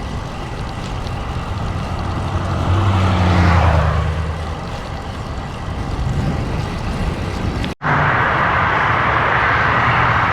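Wind rushing over an action camera's microphone and road noise while cycling into a strong headwind, with a motor vehicle passing a few seconds in. About eight seconds in the sound cuts out for an instant, then a louder, steady rushing noise carries on.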